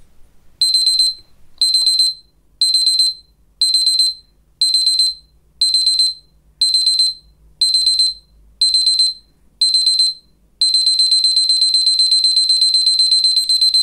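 A TFA 38.2038.02 digital kitchen timer's alarm going off as the countdown reaches zero. It gives loud, high-pitched electronic beeping in half-second groups of rapid beeps about once a second, ten times over. From about ten and a half seconds in, the beeping runs on without pauses.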